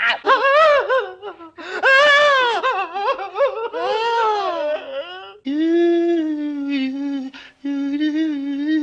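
A man making wordless comic vocal noises: whining, wavering slides up and down in pitch for about five seconds, then long held hummed tones broken once by a short gap.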